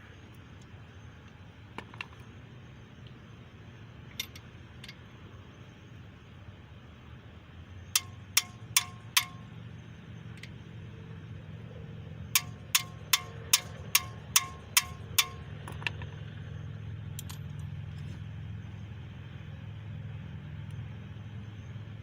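Metal being struck with a hammer in a steady rhythm, each blow ringing: four quick blows about eight seconds in, then eight more a few seconds later, over a low steady hum.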